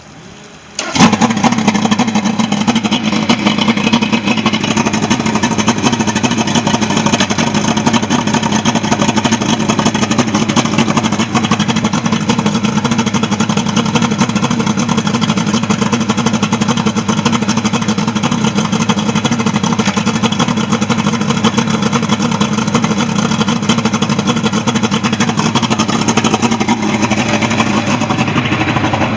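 Mercury 225 V6 outboard catching about a second in and then running steadily, out of the water on a hose hookup with its newly installed SEI lower unit in gear and the propeller turning.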